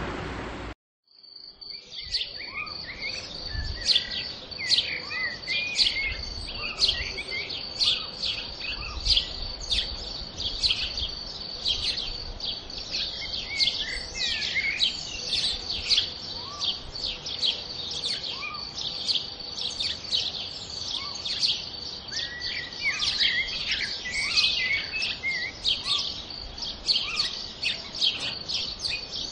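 Countryside ambience: several small birds chirping and singing rapidly over a steady high insect trill. It fades in after an earlier rushing noise cuts off about a second in.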